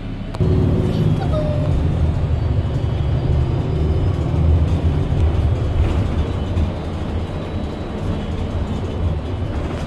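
Low, steady rumble of a city transit bus in motion, heard from inside the cabin: engine and road noise. It steps up abruptly about half a second in.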